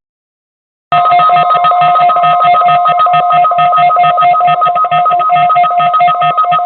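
Electronic emergency alert signal: after about a second of silence, a loud, rapidly pulsing electronic alert tone of two steady pitches sounds, pulsing about four times a second.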